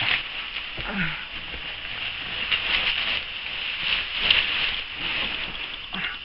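Plastic bubble wrap rustling and crinkling with many small irregular crackles as it is handled and pulled away from a packed item.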